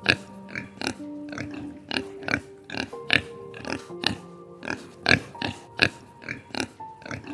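An animal's short calls, about three a second at an uneven pace, over soft background music with held notes.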